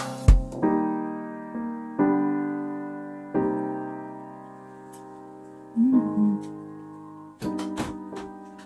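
Background piano music: slow chords, each one ringing and fading away before the next is struck. Near the end a few short clicks sound over it.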